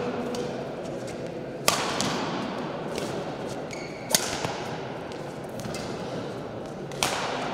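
Badminton rackets hitting a shuttlecock in a rally: three sharp smacks about two and a half seconds apart, each ringing in the large hall, over a steady background murmur.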